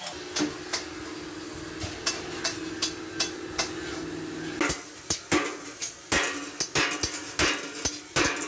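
Oxy-fuel cutting torch hissing steadily as it cuts round griddle blanks from steel plate, with repeated sharp knocks on metal, a couple a second and coming thicker after about four and a half seconds.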